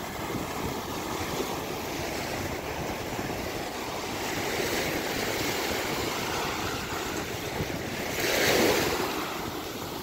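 Ocean surf: small waves breaking and washing up the sand at the shoreline in a steady hiss, swelling with a louder wave about eight seconds in.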